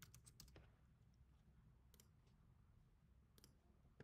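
Faint computer keyboard keystrokes and mouse clicks over near-silent room tone: a quick run of key clicks at the start, then a few single clicks spaced out over the rest.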